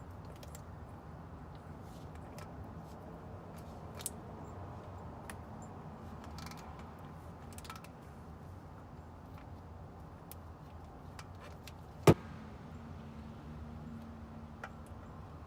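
Scattered metal clicks and clinks of a filter wrench and ratchet working an oil filter loose, with one sharp knock about twelve seconds in.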